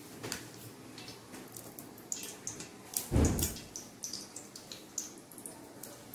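Ghee melting in a hot brass uruli, crackling with scattered small pops and sizzles. A dull thump about three seconds in.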